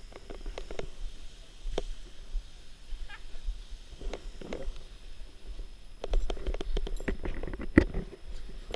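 Rustling and scattered knocks from a nylon parachute canopy and its lines being handled on grass, with a low rumble of wind on the helmet-camera microphone about six seconds in.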